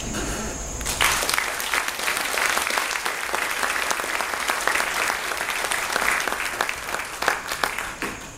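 Audience applauding. The clapping starts about a second in and dies away near the end.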